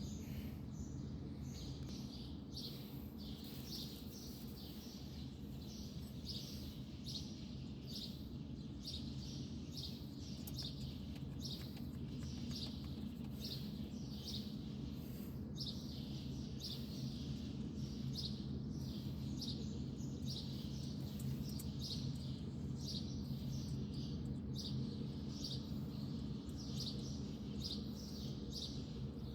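A bird chirping over and over, short calls once or twice a second, over a steady low hum.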